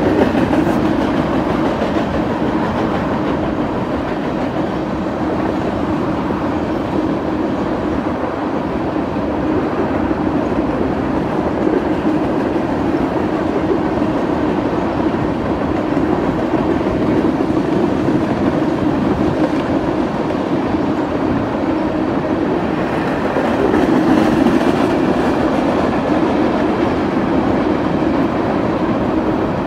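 Freight train cars rolling along the track: steady noise of steel wheels on rail, a little louder about three-quarters of the way through.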